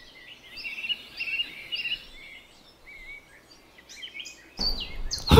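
Birds calling outdoors: a chirping phrase repeated about three times in the first two seconds, then scattered softer chirps. Near the end a louder, fuller sound sets in.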